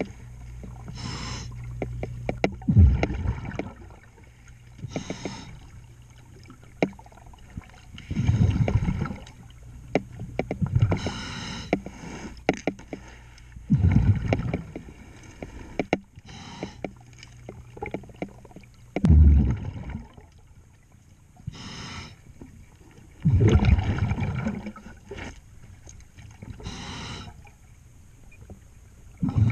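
Scuba diver's regulator breathing underwater: a hissing inhale alternating with a rumbling, bubbling exhale, one breath cycle about every five to six seconds, with scattered small clicks in between.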